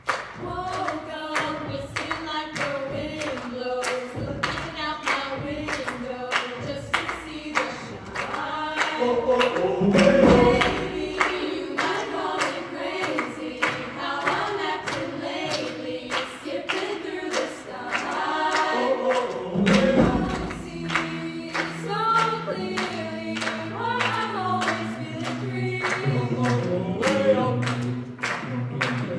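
Mixed-voice high school chamber choir singing an upbeat a cappella pop arrangement in close chords, over a steady beat of hand claps. One voice is amplified on a handheld microphone, and a low sustained bass part comes in about two-thirds of the way through.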